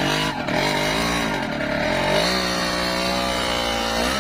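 Two-stroke Yamaha motorcycle engine revving under a heavy load, its pitch rising and falling several times.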